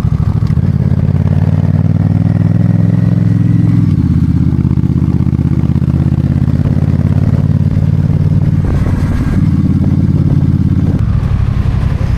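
Vehicle engine running steadily under load, heard close up; its pitch shifts down about four seconds in and changes again near the end, as with a gear or throttle change.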